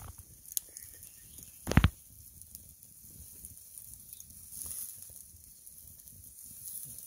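Wood campfire burning under a grill of sausages: a steady hiss with scattered small crackles, and one sharp, loud pop about two seconds in.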